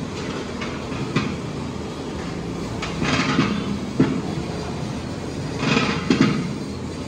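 A long wooden paddle stirring thick dal in a large metal pot: swishing, scraping strokes about every two seconds, with a sharp knock of wood on metal about four seconds in, over a steady low rumble.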